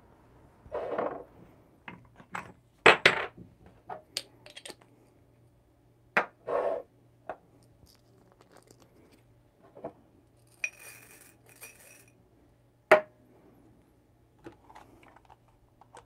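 Scattered clinks, knocks and light scrapes of coffee-grinder parts and tableware being handled by hand: the Varia VS3 grinder's metal top cap is lifted off and things are set down on the counter. A short rough scraping rustle about ten seconds in.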